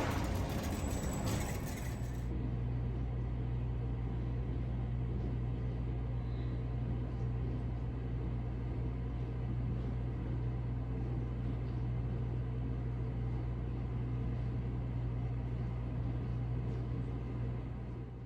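A steady low mechanical hum with a fainter background hiss. Before it settles, about two seconds of broader rustling noise.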